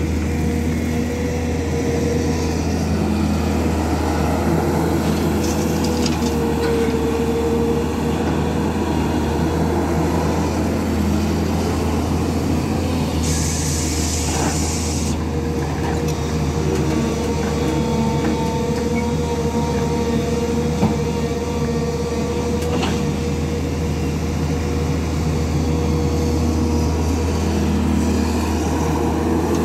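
SANY 210 crawler excavator's diesel engine running steadily under working load, with a steady whine over the engine's low hum. A short hiss comes about halfway through.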